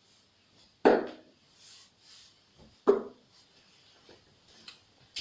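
Two darts hitting a wall-mounted dartboard, about two seconds apart: one sharp knock about a second in and another near three seconds in.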